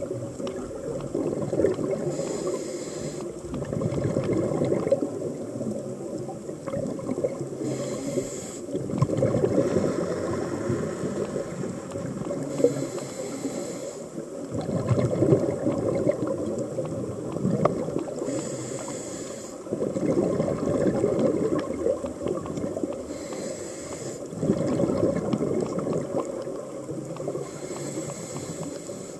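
Scuba diver breathing through a regulator underwater. There are about six short hissing inhales, roughly one every five seconds, each followed by a long rush of exhaled bubbles.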